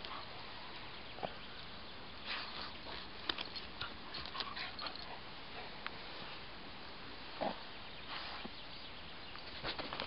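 Doberman sniffing with its nose in the grass and scratching at the soil with its front paws while hunting for a mouse: short snuffling bursts and scattered scrapes and clicks.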